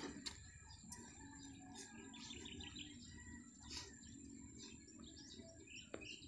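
Faint birds chirping, with a quick run of short notes about two seconds in, over a low rumble.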